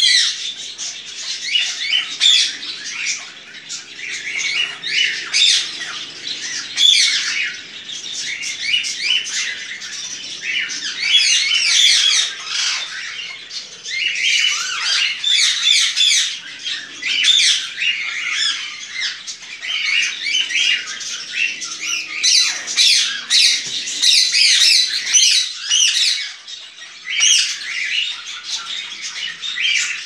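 Chopi blackbirds calling and singing: a dense run of rapid chattering and whistled notes that keeps going with only brief lulls.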